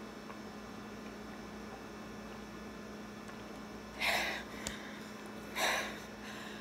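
A steady low electrical hum, then about four seconds in two short, sharp breaths out, with a small click between them: a person exhaling hard after holding her breath to gulp down a drink.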